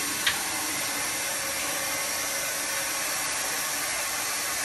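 A wet-and-dry vacuum cleaner running steadily as its hose nozzle is pushed over a tiled floor, with one brief click about a third of a second in.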